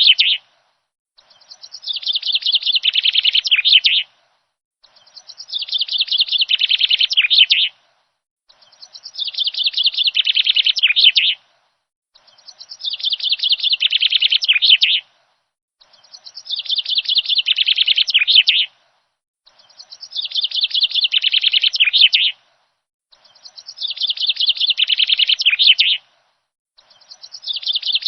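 Bird song: the same rapid chirping phrase, about three seconds long and rising in loudness, repeats about every three and a half seconds with silence in between, like a looped recording.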